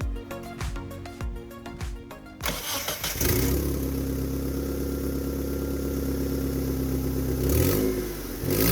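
Background music, cut off about two seconds in by a Mitsubishi car engine starting and settling into a steady run, with a brief rev near the end. The engine catches now that the cracked vacuum hose linking the fuel pressure regulator to the intake manifold has been repaired.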